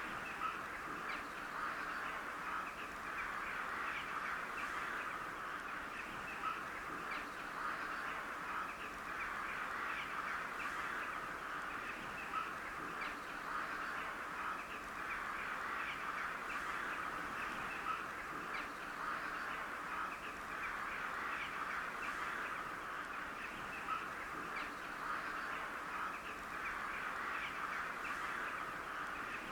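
Crows cawing, many calls overlapping into a steady chorus without a break.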